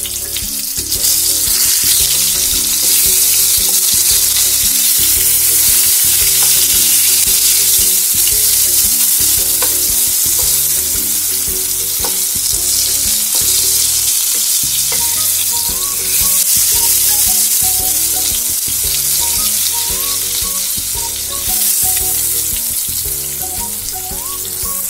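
Marinated eggplant (brinjal) wedges shallow-frying in hot oil in a non-stick pan, giving a steady sizzle. A couple of light taps come about ten and twelve seconds in, as a wooden spatula turns the pieces.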